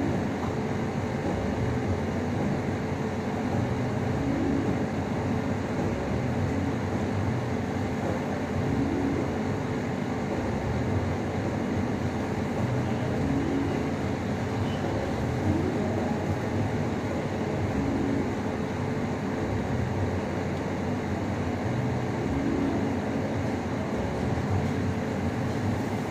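Steady low rumble and hum of background room noise, with a faint steady tone and muffled low sounds that swell and fade every few seconds.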